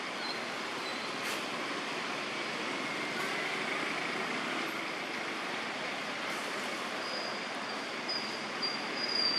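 Steady outdoor background hiss, with a faint thin high tone coming and going in the last few seconds.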